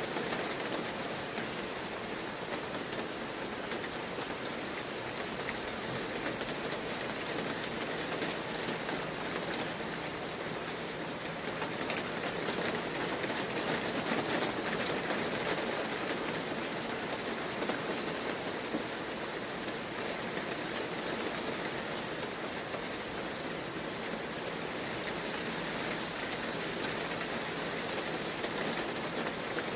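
Heavy rain falling steadily: an even, unbroken hiss of drops on surfaces.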